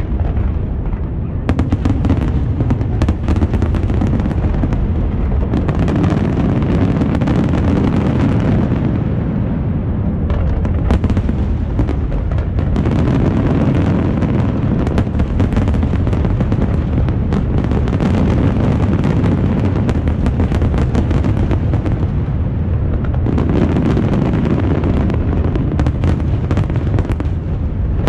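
Aerial fireworks going off in a dense barrage: many bangs overlapping into a continuous low rumble, with sharper cracks throughout.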